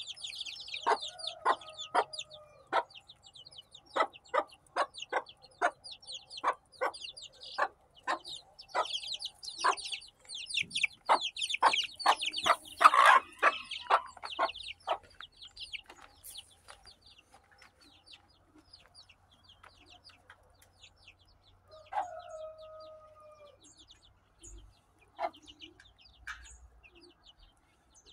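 Chickens: young chicks peeping in a busy high chorus while a hen clucks in short sharp notes about twice a second. The calling thins out after the first half, and one longer falling call comes late on.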